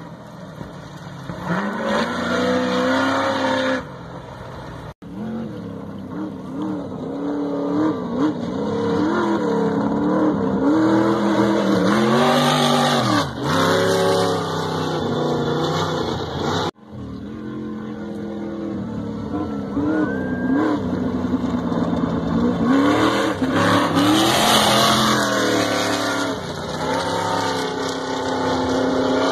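Off-road race buggies' engines revving hard as they race past on a dirt road, the pitch rising and falling again and again with throttle and gear changes. The sound cuts out briefly twice.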